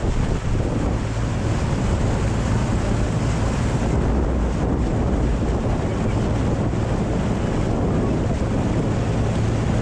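Small motorboat running steadily at speed: an even engine hum under the rush of the wake and heavy wind buffeting the microphone.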